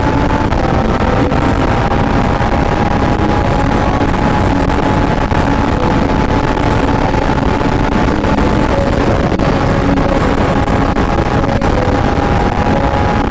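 Rushing wind and a Kawasaki ZX-10R's inline-four engine holding a steady high-rpm drone while the bike cruises at highway speed, around 160–175 km/h.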